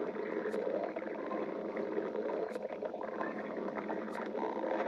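A person's stomach growling: continuous gurgling and rumbling, with a few faint clicks.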